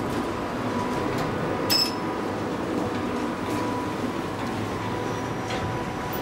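A KONE roped-hydraulic elevator running with a steady mechanical hum and a faint whine that comes and goes. There is a short high beep about two seconds in.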